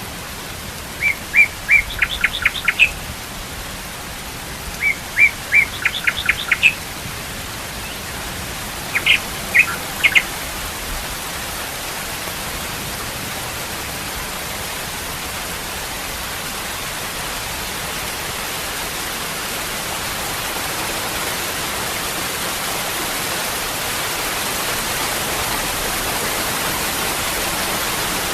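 Steady rushing of water falling from a waterfall, growing slightly louder over time. A bird calls over it in three short series of quick chirps during the first ten seconds or so.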